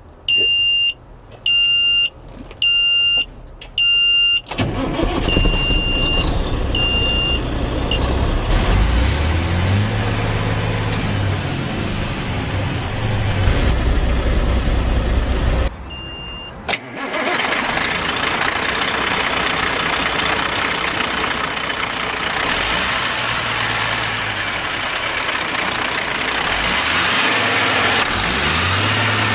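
A truck's dash warning buzzer beeps four times, then the Caterpillar diesel engine of a 2003 Kenworth T800 cranks and starts about four seconds in. It runs, rising in pitch for a few seconds around ten seconds in, and is then heard idling steadily up close.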